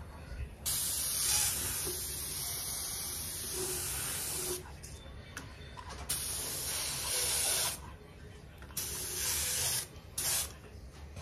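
Compressed-air paint spray gun hissing in four bursts of spraying: a long one of about four seconds, then two shorter ones and a very brief puff near the end.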